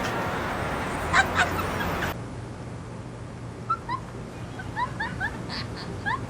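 A dog yipping and whimpering in short, high, rising cries, two sharp ones early on and a quick run of them in the second half. Street traffic noise lies under the first two seconds.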